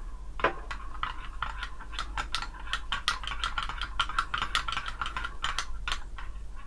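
Long-handled metal spoon stirring in a glass measuring jug, clinking rapidly and unevenly against the glass as sweetened condensed milk is mixed into a taro drink.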